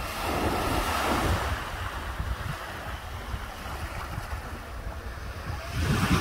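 Small waves breaking and washing up a sandy shore, one surge about a second in and another near the end, with wind rumbling on the microphone.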